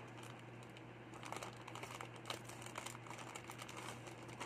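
Grey plastic mailer pouch crinkling faintly as it is handled, with small irregular clicks of scissors cutting it open, over a steady low hum.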